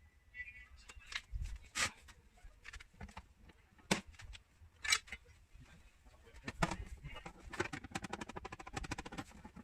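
Sharp taps on a car's sheet-metal body panel during paintless dent repair: a few single knocks spaced about a second apart, then a quick run of rapid light taps near the end.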